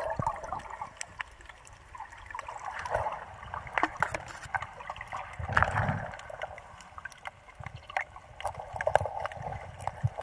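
Underwater sound from a diver's camera: irregular gurgling and bubbling, with many scattered small clicks and crackles.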